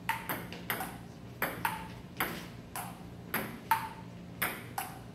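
Table tennis rally: the ball clicking off the paddles and bouncing on the table in a steady back-and-forth, about eleven sharp strikes, several with a short ringing ping.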